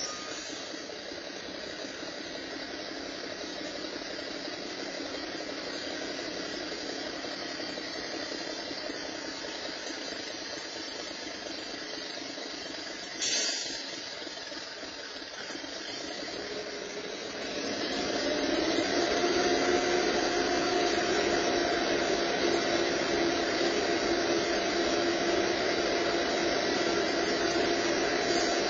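Heavy diesel vehicle engine idling, a steady noisy hum. About eighteen seconds in it grows louder and takes on a steady droning tone. A single short knock about halfway through.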